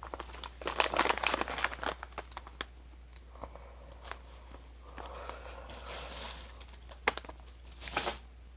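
Plastic chip bag crinkling as it is handled, a dense run of crackles at first, a softer rustle midway, and sharp crinkles again near the end.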